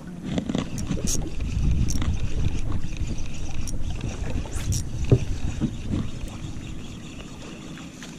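Low, steady water-and-wind noise around a small boat on the sea, with scattered sharp clicks and knocks.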